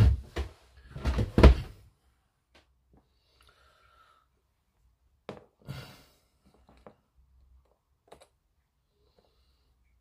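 Handling noise on a modelling desk: a couple of heavy knocks in the first two seconds, then scattered light clicks, with a small glass jar set down on a cutting mat with two knocks about five to six seconds in.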